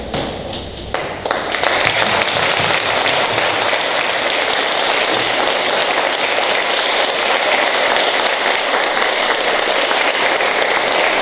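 Audience applauding: a few scattered claps, swelling within about a second and a half into full, steady applause.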